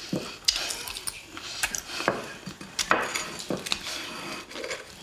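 Cutlery clinking and scraping on plates during a meal, a run of short, irregular clinks.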